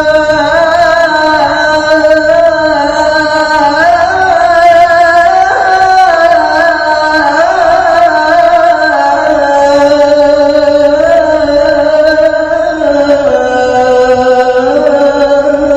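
A male muezzin singing the adhan, the Islamic call to prayer. He holds one long, unbroken melismatic phrase whose pitch winds up and down and settles lower in the last few seconds.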